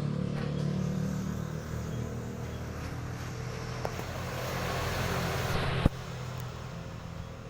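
Minimoto with a 190 cc Daytona four-stroke single-cylinder engine running steadily. A rushing noise builds over the middle and cuts off abruptly with a sharp knock about six seconds in, and the engine runs on more quietly.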